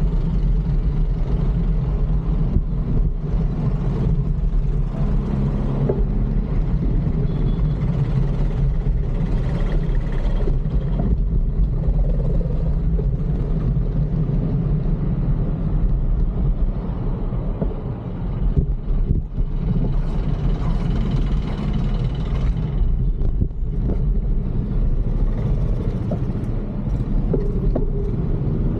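Steady low rumble of city traffic and road noise, heard while riding a fixed-gear bicycle among motor vehicles.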